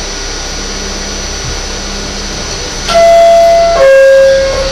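Steady hum inside an R44 subway car, then about three seconds in a loud two-tone door chime: a higher held tone for about a second, then a lower one for nearly a second, the signal that the doors are closing.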